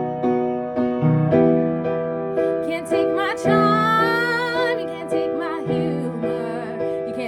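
Piano accompaniment playing sustained chords that change every second or so. From about three seconds in, a wordless sung line with vibrato and sliding pitch rises over it.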